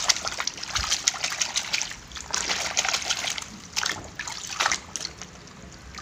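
A hand swishing and scrubbing a toy truck in a basin of muddy water: splashing and sloshing in several bursts, quieter near the end.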